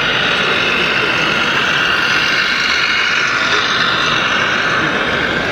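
Radio-controlled model trucks running: a steady engine-like noise with a high whine over it.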